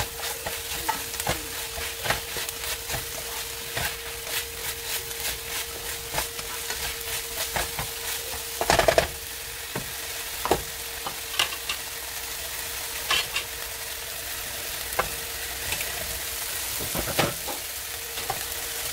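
Sautéed vegetables sizzling in a nonstick skillet as a silicone spatula stirs them, with many short scrapes and taps against the pan and a louder clatter about nine seconds in. A steady hum runs underneath. Near the end a fork scrapes cooked rice out of a pot into the skillet.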